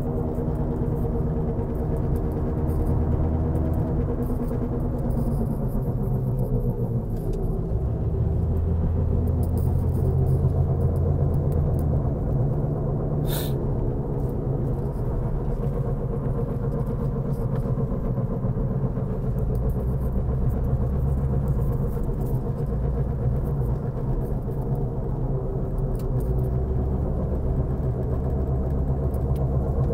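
A 2004 Mazda 3 heard from inside the cabin while driving: a steady low rumble with the throbbing noise its owner calls a helicopter noise. The engine note drops in pitch about five seconds in, and there is one sharp click about halfway through.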